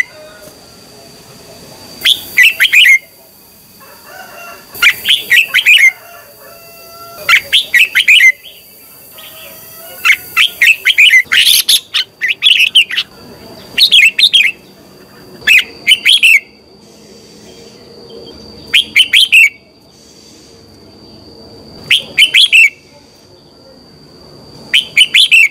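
Red-whiskered bulbul singing loud, short, rapid warbling phrases, one every two to three seconds, about ten in all, with a steady thin high whine underneath.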